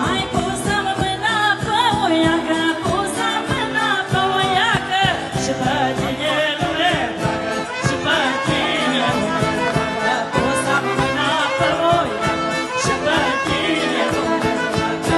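Live Romanian Maramureș folk party music: a fiddle playing a quick, ornamented melody over a steady, even beat.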